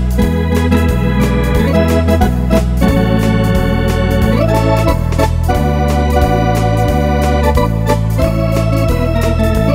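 Wersi electronic home organ playing a foxtrot-style tune: a melody over held chords, with a walking bass line and a steady drum-machine beat from the organ's accompaniment.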